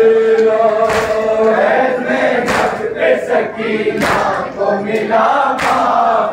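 Group of men chanting an Urdu noha (mourning lament) in unison, with a sharp collective chest-beat (matam) landing about every second and a half.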